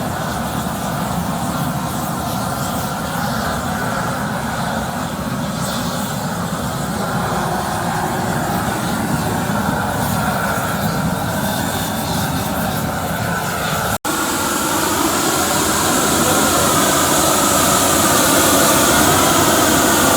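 Steady roar of a gas torch flame, used to singe the feathers off slaughtered chickens. After a sudden break about 14 seconds in, it is louder and hissier.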